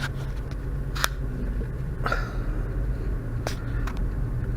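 Car interior while driving: a steady low hum of engine and road noise, with three sharp clicks spread a second or so apart.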